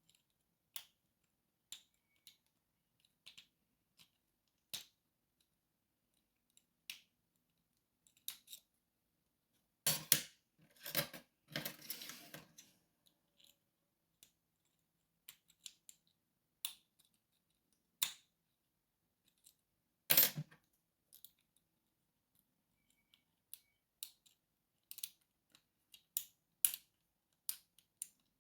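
Small metal clicks and taps of lock picks and a tension tool working a padlock, coming irregularly. About a third of the way in there is a louder burst of metal rattling and handling, and another sharp clack about two-thirds in.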